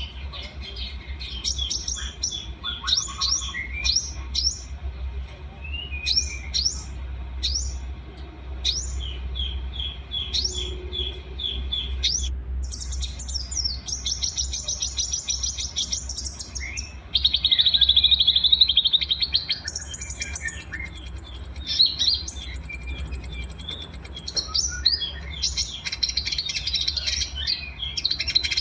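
Several small songbirds singing together in a combined song recording: quick high chirps, sweeping whistles and rattling trills overlapping throughout. About 17 seconds in, a louder buzzy trill runs for two seconds. A steady low hum lies underneath.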